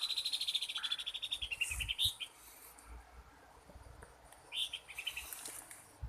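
An animal's fast, even trill of high chirps, about fifteen pulses a second, lasting about two seconds, with a second, shorter trill about four and a half seconds in. Low handling bumps run under the first trill.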